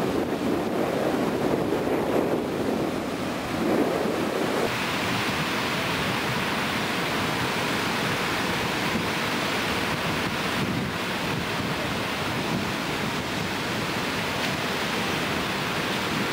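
Ocean surf breaking and wind buffeting the microphone. About five seconds in, the sound turns into a steadier, brighter hiss of surf.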